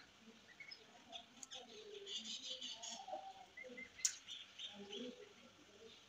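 Indian ringneck parakeet making soft, scattered chirps and low chattering mumbles, with one sharp click about four seconds in.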